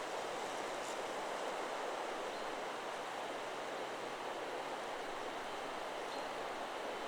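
Steady wind rushing through forest trees, an even hiss of rustling foliage. A few faint, brief high bird chirps come through, one about two seconds in and one about six seconds in; no chime strike stands out.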